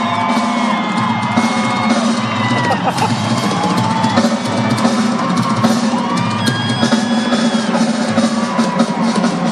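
Live rock drum kit playing a dense, driving pattern of bass drum and snare hits, with a crowd whistling and shouting over it.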